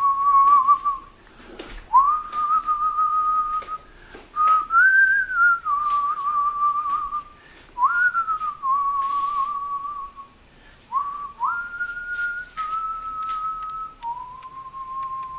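A slow whistled melody of long held notes, several sliding up into pitch, with short pauses between phrases.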